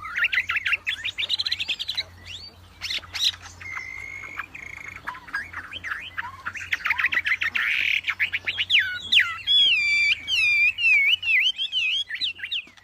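A wambi songbird singing a long, fast, varied song of whistled notes that sweep up and down, with a short steady note about four seconds in, a rapid trill near the middle and wavering whistles towards the end. A faint steady low hum lies underneath.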